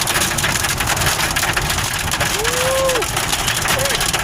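Heavy thunderstorm rain pelting the vehicle's roof and windshield in a dense, steady clatter. A short rising-and-falling tone sounds about halfway through.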